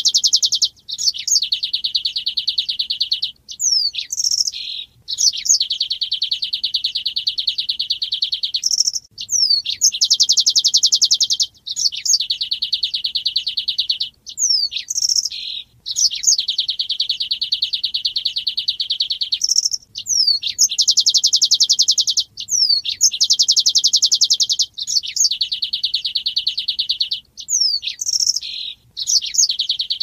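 Male weaver (manyar) singing: long buzzy, rattling trills of several seconds each, separated by brief gaps of quick downward-sliding chips, repeating over and over.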